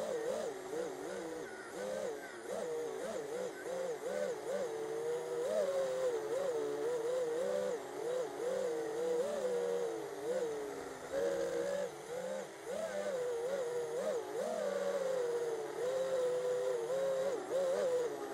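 FPV racing quadcopter's brushless motors and propellers whining as it flies, the pitch rising and falling constantly with the throttle.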